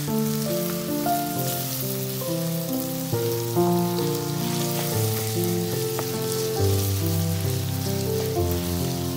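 Background music, a melody of held notes changing every half second or so, over the steady sizzle of minced meat and onions frying in a pan.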